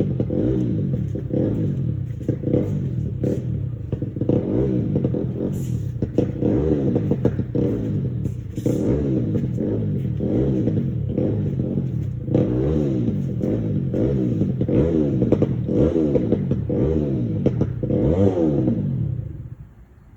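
Four-wheeler engine being revved over and over, its pitch rising and falling, with a few clatters mixed in; the engine noise dies away near the end.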